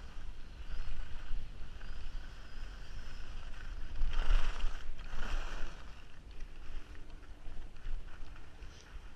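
Skis hissing and scraping over groomed snow at speed, with wind buffeting a helmet-mounted action camera's microphone as a steady low rumble. The scraping swells louder twice, about four and five seconds in.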